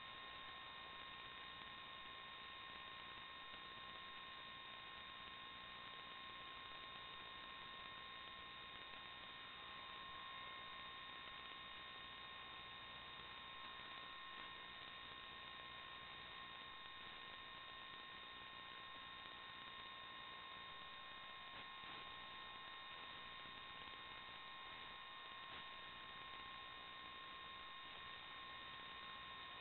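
Near silence: a steady electrical hum and hiss with a few fixed faint whining tones, unchanging throughout.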